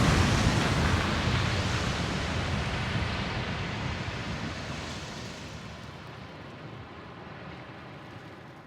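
The long tail of a dramatic boom sound effect: a rumble and hiss that fade away steadily over about nine seconds.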